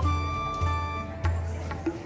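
Music: a melody of held notes over a regular low beat.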